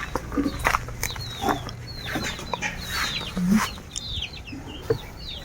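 Farmyard chickens clucking and chirping: many short, high chirps that fall in pitch, with a few scattered knocks.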